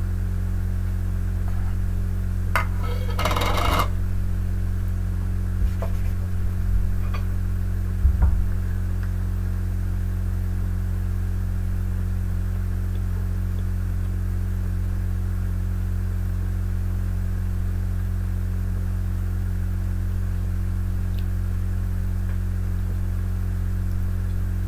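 Steady low electrical hum, with a brief rustling crunch about three seconds in and a few light taps as a Pop-Tart is handled on a plastic plate and bitten.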